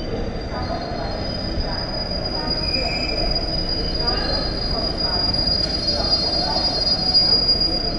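Passenger train's wheels and brakes giving a steady, high-pitched squeal over a low rumble as the train draws to a stop at a platform.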